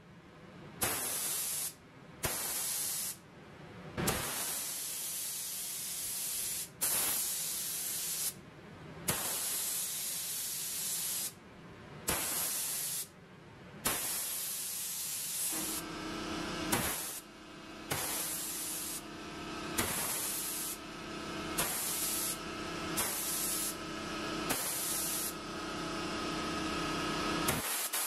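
Gravity-feed spray gun spraying paint, its air hissing in repeated bursts as the trigger is pulled and released, the bursts shorter and more frequent later on. A steady hum joins the hiss about halfway through.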